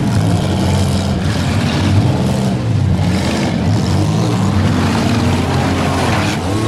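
Several demolition derby cars' engines revving, their pitch climbing and falling as the drivers push into each other.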